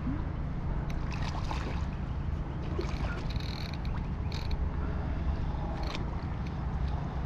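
Steady low rumble of wind and water against a kayak's hull, with scattered light clicks and taps from the tackle and boat.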